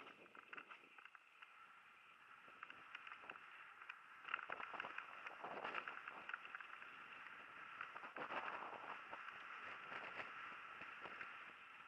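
Mountain bike rolling fast down a gravel forest singletrack: steady tyre noise on the loose surface, with many small clicks and rattles from the bike over bumps.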